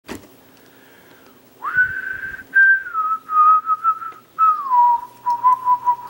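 A person whistling a slow tune, starting about a second and a half in, with held notes that step down in pitch and small trills between them.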